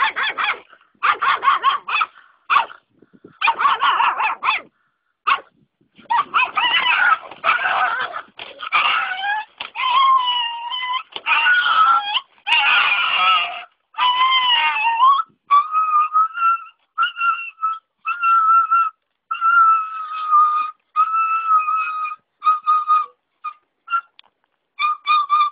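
Dog barking and yelping in many short, choppy bursts, then from about 15 seconds in a run of long, steady whining calls held on one pitch.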